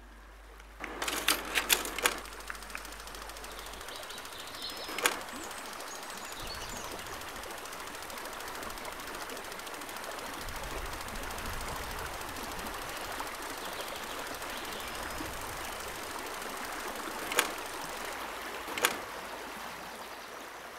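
Steady rush of flowing river water, with a quick cluster of sharp clicks about a second in and single clicks around five seconds and twice near the end.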